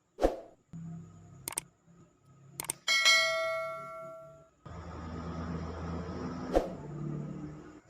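Workshop handling noises: a sharp knock, two clicks, then a metal object struck or set down with a clang that rings on for about a second and a half. Shuffling noise follows, with one more knock.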